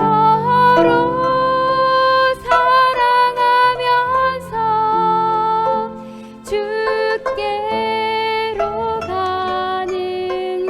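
25-string gayageum playing a hymn melody over an instrumental accompaniment, with long held notes and a few sharp plucks.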